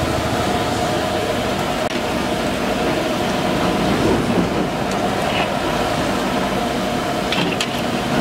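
Kachoris deep-frying in a large iron kadai of hot oil: a steady bubbling hiss over a constant low rumble, with a couple of light clicks from the slotted ladle near the end.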